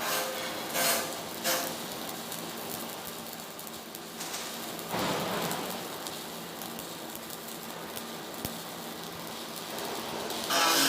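Welding arc crackling and sputtering steadily, with a few sharper cracks in the first second and a half.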